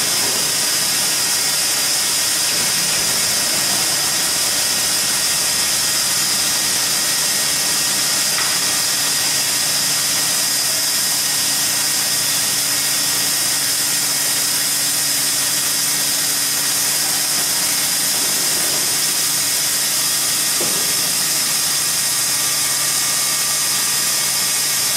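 Large band saw cutting through thick metal plate: a steady, loud hiss of the blade in the steel over a low, even hum from the drive.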